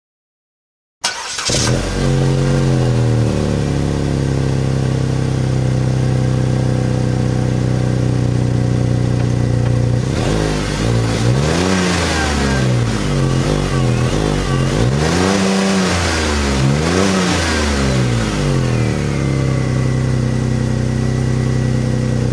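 Car engine starting: it fires up about a second in, its revs drop and settle into a steady idle, then it is revved up and down several times before settling back to idle.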